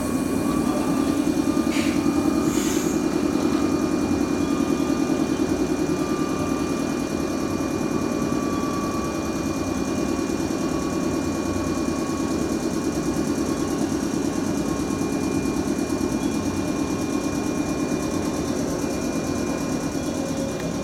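Electric commuter trains at a station platform: a steady hum of running on-board equipment with a rapid pulsing and a steady high whine, and a short hiss of air about two seconds in.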